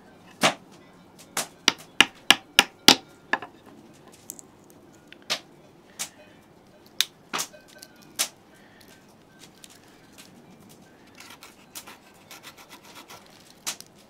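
Sharp knocks of wood being struck, a quick run of about seven in the first three seconds and a few more spaced out after, as a Victorinox pocket-knife blade is worked down into a short wooden stick piece on a wooden block to split it. Softer clicks follow near the end.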